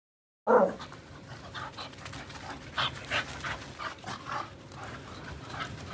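A dog panting, short rough breaths about three a second. The sound cuts in suddenly about half a second in, loudest at that first moment.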